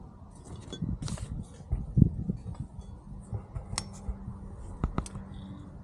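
Scattered clicks and knocks of small metal car parts and tools being handled during a shifter removal, with one louder knock about two seconds in and two sharp clicks near the end, over a faint steady hum.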